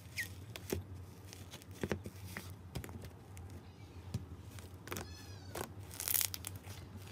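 Soft, puffy slime being squeezed and kneaded by hand: wet squishes and small crackling pops, loudest about six seconds in. A brief squeaky, meow-like tone about five seconds in.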